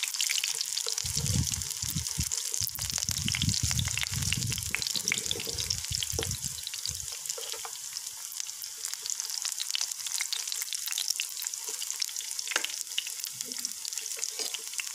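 Potato chapli kababs shallow-frying in oil over low heat: a steady sizzle full of fine crackles. Dull low bumps come and go through the first half, as the kababs are turned over with spatulas.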